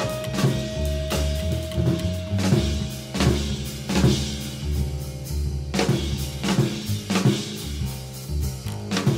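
Music: a drum-kit beat with kick, snare and rimshot over a bass line, and a held note that stops about three seconds in.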